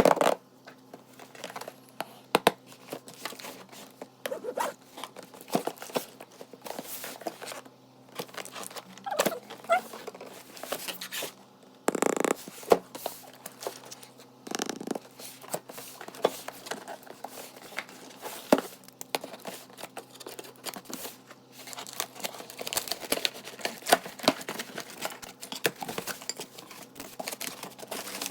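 Cardboard and plastic packaging of a stainless steel cookware set being opened and handled: irregular rustling, crinkling and tearing with scattered clicks and knocks, and two longer noises near the middle.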